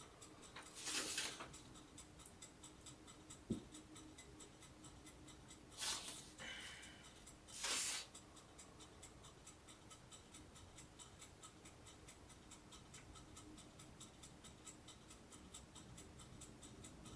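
Pages of an instruction booklet rustling three times, with a single sharp click, over faint, evenly spaced ticking in a quiet room.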